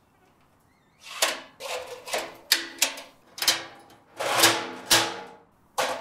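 Stainless steel smokeless fire pit being handled and fitted onto its metal stand: a string of about eight metal clanks and scrapes, some leaving a short metallic ring. The loudest comes about four and a half seconds in.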